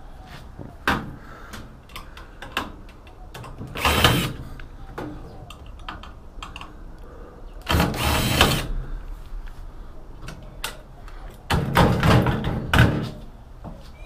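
Cordless drill run in three short bursts on a microwave oven's casing, the middle one about a second long with a steady motor whine. Small knocks and clicks of handling come between.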